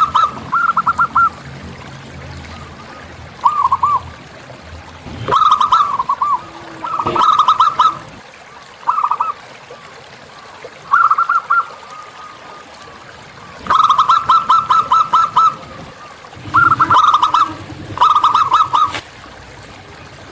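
Zebra dove (perkutut) cooing: short phrases of fast, stuttering coo notes, repeated about a dozen times with pauses of one to three seconds between them.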